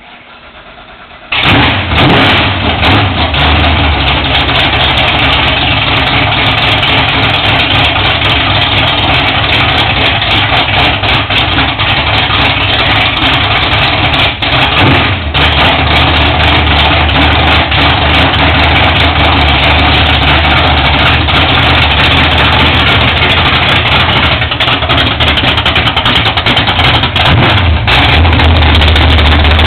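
1965 Ford Mustang's 408 cubic inch stroker V8, built from a 351 Windsor, starting suddenly about a second and a half in, then running loudly and steadily at idle.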